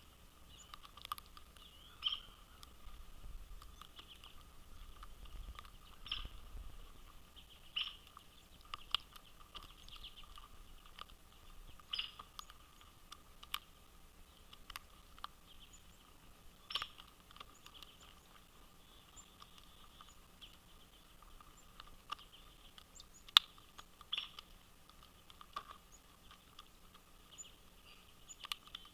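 Birds at a feeder: irregular sharp taps and clicks of pecking at seed and the feeder, with faint chirps in the background.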